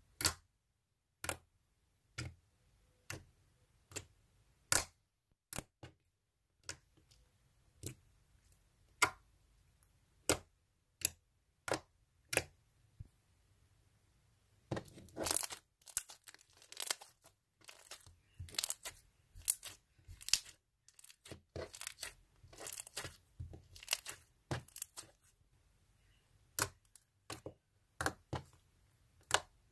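Slime being handled and squeezed, giving sharp pops and clicks about once a second, with a busier run of crackling pops through the middle.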